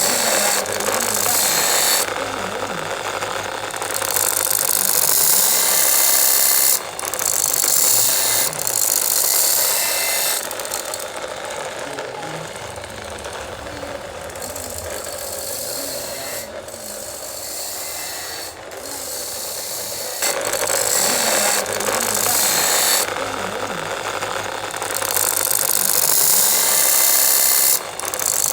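A power tool or workshop machine running with a ratcheting, rattling mechanical noise. It alternates between louder and quieter stretches.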